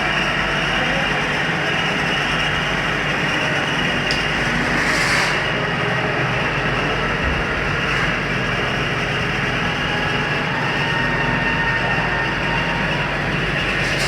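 Heavy-duty CNC-retrofitted lathe running with a steady, loud mechanical drone, with a brief hiss about five seconds in.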